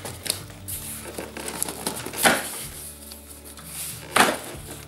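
Long cardboard box being pulled open by hand: crackling and rustling of cardboard, with two loud rips of the flap tearing free, about two seconds in and near the end.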